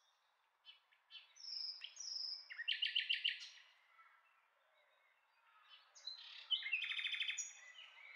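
Small birds chirping and trilling in short, rapid phrases, in two bouts with a pause between them.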